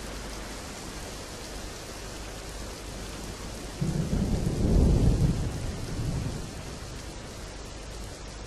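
Heavy rain falling steadily. About four seconds in, a low roll of thunder swells up, is loudest about a second later, and dies away over the next second or two.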